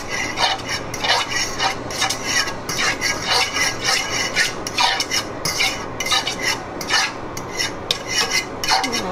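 A metal fork stirring melting butter in a frying pan, scraping and clinking against the pan bottom in quick, irregular strokes.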